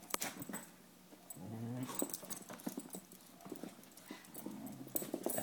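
Dogs scuffling in play, their claws clicking and scrabbling on a hard floor. A short low growl comes about one and a half seconds in, and a fainter one near the end.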